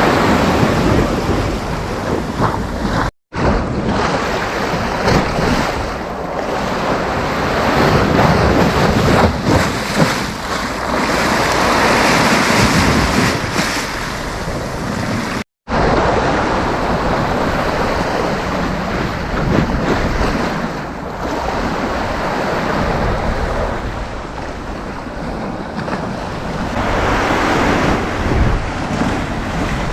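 Sea waves breaking and washing up a sandy beach, the surf swelling and ebbing, with wind buffeting the microphone. The sound cuts out briefly twice, about three seconds in and again about halfway through.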